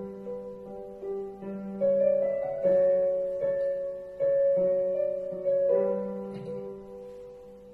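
Piano playing an instrumental passage without voice: notes and chords struck one after another, each ringing and fading away. The passage grows quieter towards the end.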